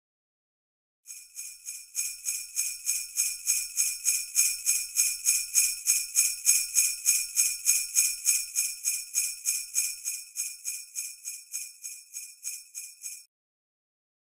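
Sleigh bells shaken in a steady rhythm, about three shakes a second. They start about a second in, swell, then fade and stop near the end.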